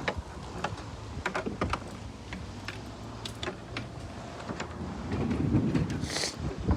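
Clicks and knocks from a riding mower's grass bagger being handled, with a louder scraping rustle about five seconds in that ends in a short hiss.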